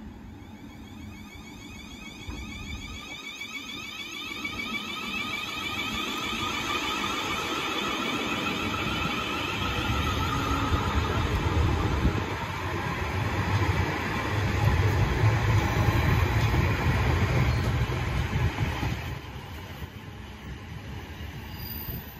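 South Western Railway Class 444 Desiro electric multiple unit pulling away and gathering speed: its traction motors give a rising whine for the first half, then wheel-on-rail rumble grows loud as the carriages pass close and falls away a few seconds before the end.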